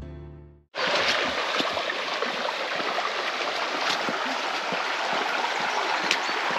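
Background music fading out, then, after a short break, a shallow stream running steadily over stones, with a few light taps.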